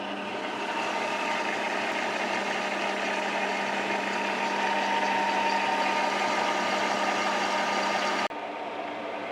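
Takisawa TSL-550 engine lathe running under power: the motor and geared headstock give a steady hum with a strong steady tone. About eight seconds in the sound drops abruptly to a quieter, different hum.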